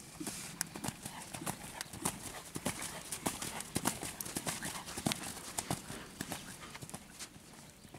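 Grey horse cantering under a rider on an arena's sand footing: a continuous run of quick hoofbeats, several a second.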